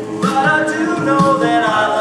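Male a cappella group singing in harmony, a lead voice over sustained backing vocals, with a vocal-percussion beat about twice a second.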